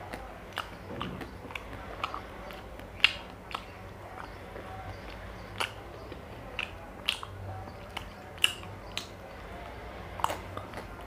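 Wet mouth sounds of eating a chocobar ice cream bar off its stick: irregular sharp lip smacks, licks and slurps, with the loudest smacks about three seconds in and again near eight and a half seconds.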